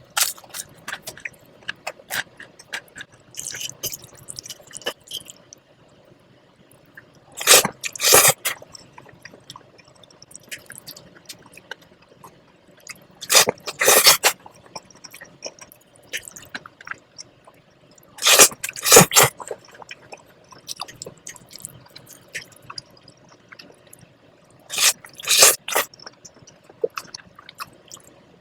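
Spaghetti in cream sauce being slurped in four loud bursts a few seconds apart, with wet chewing and small mouth clicks in between.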